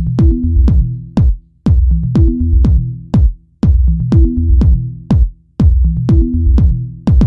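Electronic intro music with a drum-machine beat and a deep bass line, repeating in a short loop.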